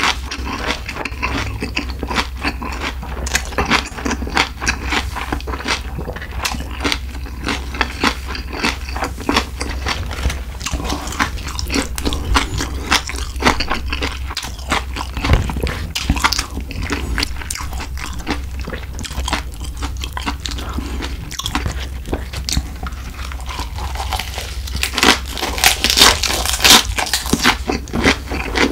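Close-miked chewing and biting of spicy stir-fried pork and lettuce wraps: wet, irregular mouth sounds with crisp crunches, loudest near the end.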